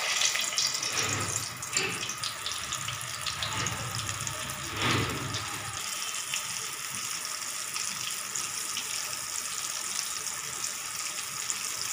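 Stuffed raw bananas sizzling as they shallow-fry in hot oil. The sizzle surges a few times in the first five seconds as pieces are lowered in, loudest about five seconds in, then settles to a steady sizzle.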